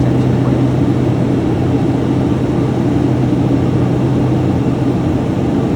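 Piper Cheyenne III twin turboprop in flight, heard in the cabin: a steady drone of the engines and propellers with a strong, even low hum.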